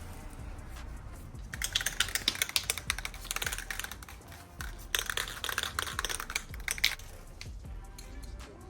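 An aerosol spray-paint can being shaken, its mixing ball rattling in rapid clicks. There are two bouts of a few seconds each, with a short pause between them.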